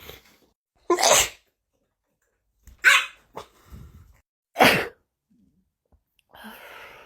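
A person sneezing three times in quick succession, each sneeze short and sharp, about one and a half to two seconds apart. A softer breathy sound follows near the end.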